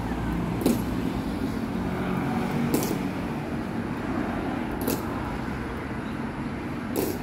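Marching squad's boot heels striking the stone pavement in unison, four sharp steps about two seconds apart, over a steady hum of road traffic.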